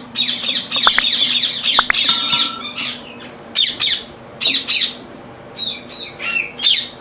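Ringneck parakeets squawking: runs of harsh, rapid screeches from several birds calling over one another, densest in the first three seconds, then in short clusters after brief pauses.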